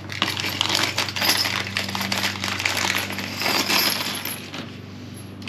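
Small steel repair tubes from a fishing-rod repair kit clinking and rattling against each other as they are sorted through by hand, a rapid run of light metallic clicks that thins out near the end, over a steady low hum.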